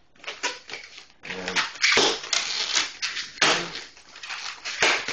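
Inflated latex twisting balloons squeaking and rubbing against the hands and each other as they are bent and folded: a run of short scrapes with a few brief squeaks.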